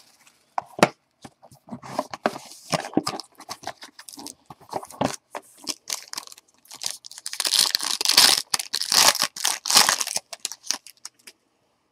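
Plastic wrapping of a sealed trading card box and pack being torn open and crinkled by hand, in irregular crackles that grow denser and louder about seven seconds in, then stop shortly before the end.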